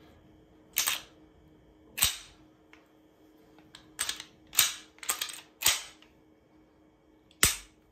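Glock 17L being reassembled and function-checked: about seven sharp metallic clacks as the slide is seated on the frame and the action is worked, spaced irregularly with quiet gaps between.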